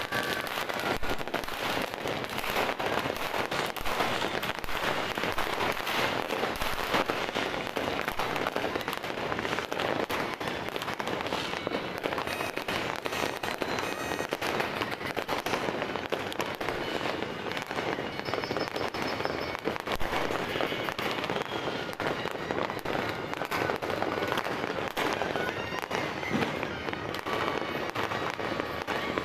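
Firecrackers and fireworks going off without pause: a dense, continuous barrage of pops and crackles from many sources.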